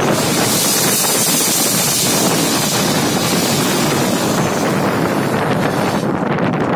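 Running noise and wind inside the cab of a moving RGE-20 diesel locomotive: a steady rumbling rush. A brighter hiss lies over it and drops away about six seconds in.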